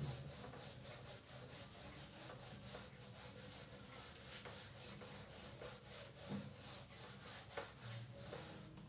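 Whiteboard duster rubbing across a whiteboard in quick, faint back-and-forth strokes as the board is wiped clean.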